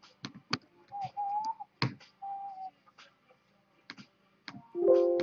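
Sharp clicks and taps of typing on an iPad's on-screen keyboard, with two short steady tones in the first half. Near the end a held musical chord of several notes comes in and fades slowly.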